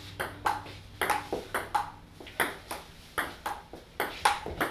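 Table tennis rally: the ball clicks back and forth in a steady run of sharp ticks, paddle hits alternating with bounces on the table, several a second.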